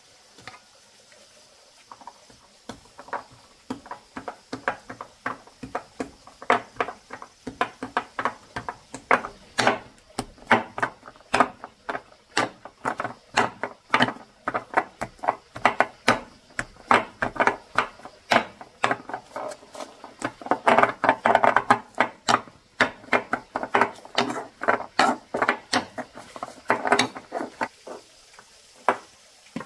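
A steady run of sharp knocks or taps, about two to three a second, starting about two seconds in, loudest a little past the middle and tailing off near the end.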